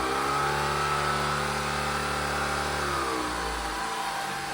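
Shark Vertex Pro cordless stick vacuum's motor running at its higher rug setting, then stepping down in pitch to the lower normal setting about three seconds in.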